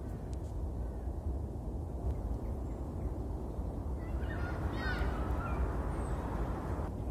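A steady low rumble with a bird calling in a short cluster of quick, curving notes about four to five seconds in, and a few faint chirps earlier.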